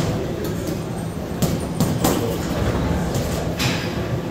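Gym room noise: a steady low hum with several short, sharp knocks, the loudest about a second and a half and two seconds in.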